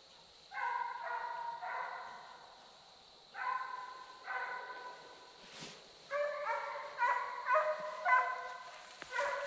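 A pack of deer-hunting hounds baying on a chase, with long drawn-out cries. They begin about half a second in, pause briefly near three seconds, then several dogs sound over one another toward the end.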